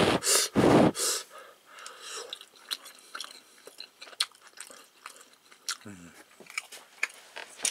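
A person chewing a bite of grilled, spicy marinated duck meat, wet chewing with many soft mouth clicks. It starts with a few loud breathy puffs in the first second. There is a short low falling hum about six seconds in.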